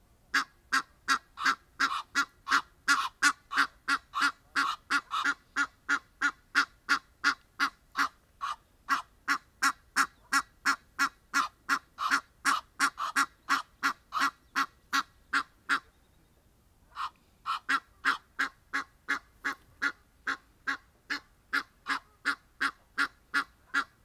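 Egyptian goose honking in a long, even run of loud calls, about three or four a second. It breaks off for about a second two-thirds of the way through, then starts again.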